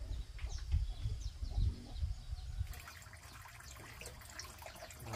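Water running and splashing, coming in about two and a half seconds in as a steady crackly hiss, over a low rumble.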